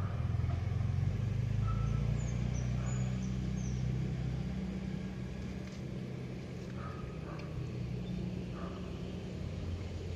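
Low rumble of road traffic, swelling in the first few seconds and easing off after about four seconds, like a vehicle passing. A few faint high chirps come in about two to three seconds in.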